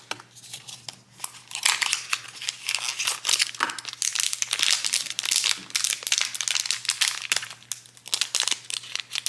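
Black foil pouch from a Loungefly Disney mystery pin box being crinkled and torn open by hand, dense rapid crackling that picks up about a second and a half in.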